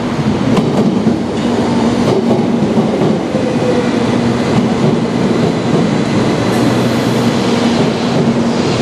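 Shinkansen 700 series bullet train pulling into the platform and running past, a loud steady rumble and hum of the passing cars with a few sharp wheel clicks in the first couple of seconds.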